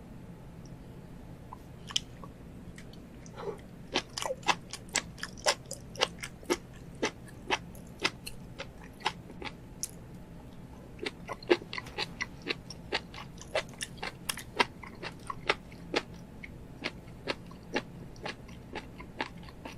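Mukbang eating sounds: a person biting and chewing, with sharp crunching clicks about two a second and a short pause about halfway through.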